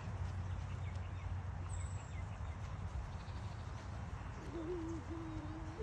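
Farmyard ambience: a steady low rumble with faint short bird-like chirps. Near the end comes one held, even-pitched call lasting about a second.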